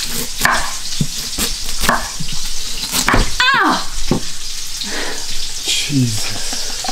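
Chef's knife chopping carrots on a wooden cutting board, a run of sharp knocks as the blade hits the board, over the steady sizzle of a pan frying on a gas hob. A short falling tone sounds about halfway through.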